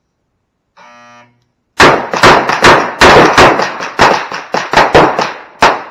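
A shot timer's short electronic start beep about a second in, then a rapid string of pistol shots fired at bowling pins, several shots a second.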